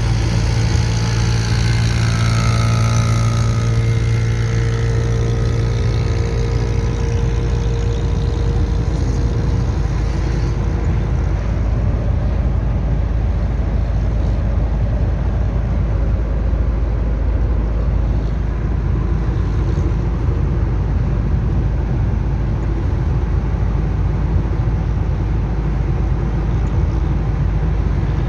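Chevrolet D-10 turbo diesel engine running steadily, with a whine that falls in pitch over the first few seconds.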